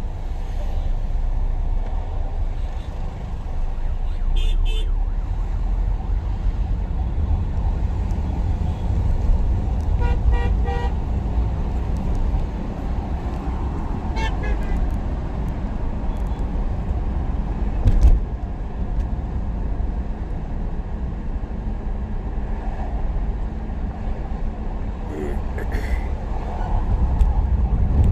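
Road traffic noise with a steady low rumble, and other vehicles' horns honking several times: about four seconds in, a double honk about ten seconds in, again around fourteen seconds and near the end. There is a single sharp knock about eighteen seconds in.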